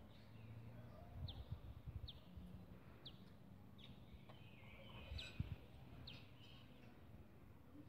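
A bird calling faintly, with short, high chirps that slide downward, repeated about once a second, over a low rumble.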